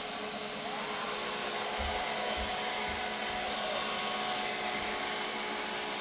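Roborock robot vacuum running with a steady whir and several constant tones, with a few soft low thumps. It is working again after its laser distance sensor's rubber drive belt was put back on.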